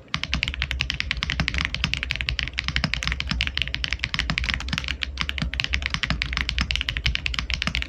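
RK M75 mechanical keyboard being typed on fast and without pause, a continuous stream of key clacks, many strokes a second.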